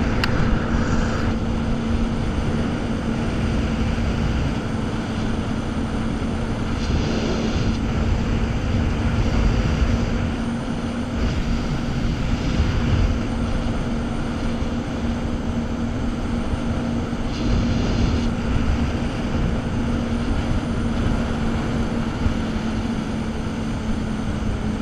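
Jet ski engine running at a steady cruising speed, one constant drone, over the rush of water and wind.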